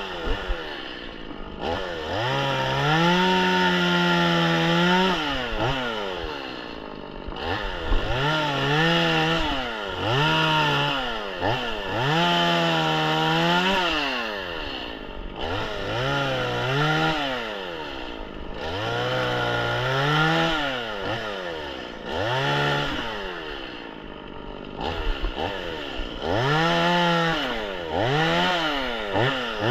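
Stihl MS 180 two-stroke chainsaw revved up and let back down again and again, every two to three seconds, its pitch climbing, holding briefly at full speed, then falling away.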